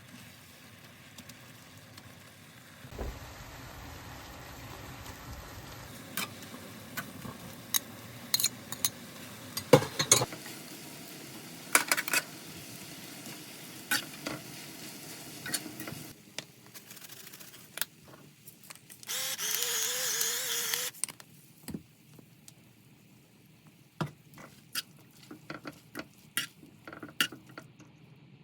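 Food sizzling in a pan while a utensil stirs, clinking and knocking against the pan, with a louder hiss lasting about two seconds about two-thirds of the way through.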